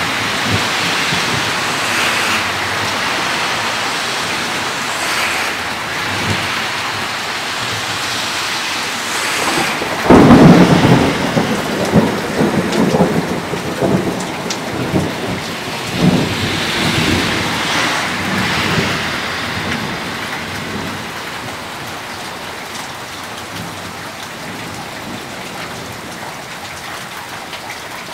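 Steady rain of a thunderstorm, with a sudden loud clap of thunder about a third of the way in that rolls on in several rumbles before fading out. The rain grows quieter near the end.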